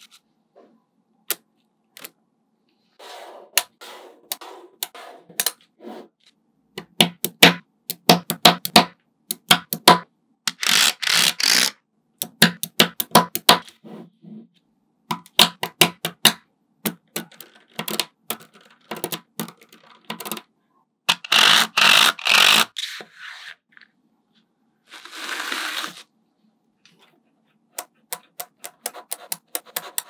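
Small magnetic metal balls clicking and snapping together under the fingers as they are pressed into place, in single clicks and quick runs of clicks, with a few dense rattling bursts.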